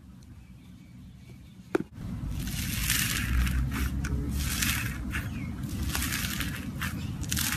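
Slime being squeezed and pressed by hand, giving irregular bursts of crackling, squishing sound that begin about two seconds in, just after a single sharp click.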